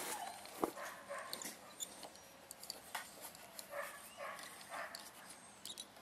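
Faint handling noise at the door-jamb courtesy light switch and its rubber door seal: scattered small clicks and scrapes, the sharpest about two-thirds of a second in, with a few short, soft high-pitched sounds in between.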